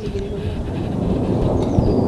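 Twin-engine jet airliner passing overhead at low altitude, its engines a steady low rumble.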